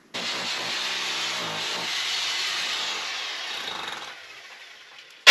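A power saw cutting through timber, running steadily for about four seconds and then stopping.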